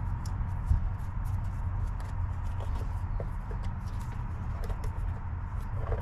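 Faint squeaks and ticks of a long console screw being backed out with a T-handle screwdriver, over a steady low rumble. The screw is bent.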